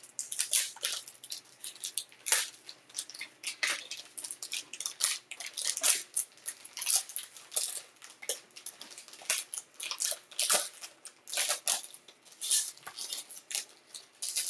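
Plastic wrapping and packaging on a trading-card box crinkling and tearing as it is opened by hand: a run of irregular crackles and rustles.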